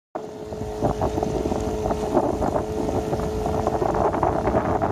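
A sailboat under way with a steady engine drone and wind buffeting the microphone in irregular gusts.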